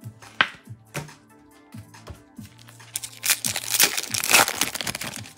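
A foil trading-card pack (2024 Topps Chrome Update) being torn open by hand, its wrapper crinkling and ripping loudly from about three seconds in. Two sharp clicks come in the first second, and background music with a steady beat plays underneath.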